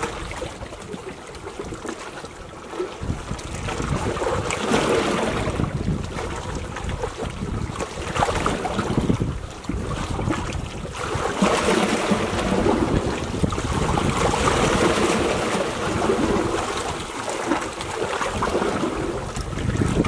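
Small sea waves lapping and washing on a rocky shore, swelling and easing every few seconds, with wind rumbling on the microphone.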